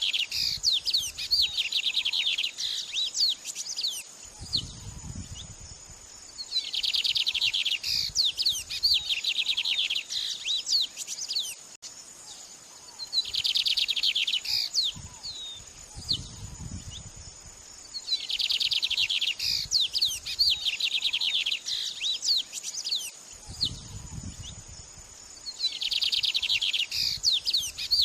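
White-rumped shama (murai batu) singing in repeated bouts a few seconds apart, each a fast run of sharp high chirps and trills, over a steady high-pitched hiss.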